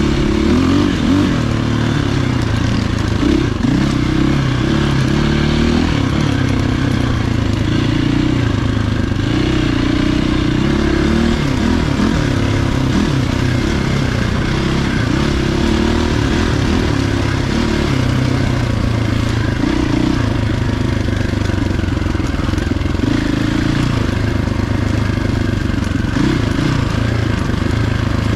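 450 four-stroke enduro dirt bike engine running continuously while being ridden, its pitch rising and falling with the throttle.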